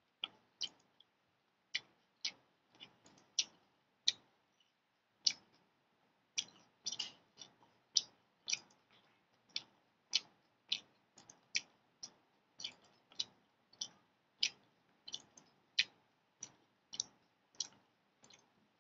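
Faint, sharp clicks at uneven intervals, about two a second.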